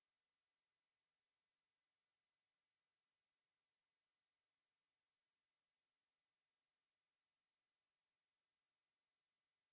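A steady, high-pitched pure sine tone at 8618 Hz, held at a constant level without a break: a speaker test tone, also used to shake water and dust out of a phone speaker.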